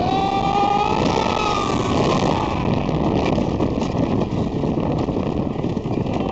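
Cyclone wooden roller coaster train running at speed along its wooden track, a loud steady rumble and clatter of the wheels with wind rushing past. Over the first two seconds a long high-pitched sound rises and then falls above it.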